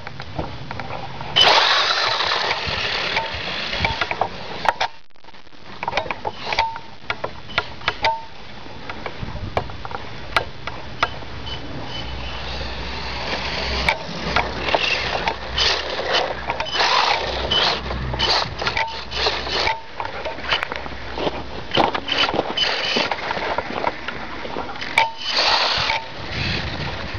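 Electric motor of a Traxxas Mini Slash 1/16 RC truck whining in short throttle bursts, mixed with repeated bursts of crunching, rustling noise as it drives and slides on snow.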